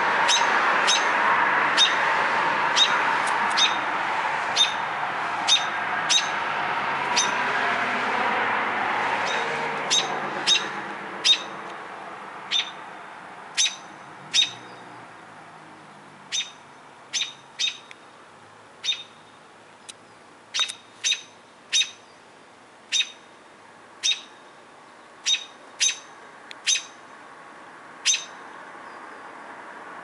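An American robin giving a sharp, short call note over and over, roughly one every half second to a second, with irregular gaps. A steady rushing noise underneath fades away over the first ten seconds or so.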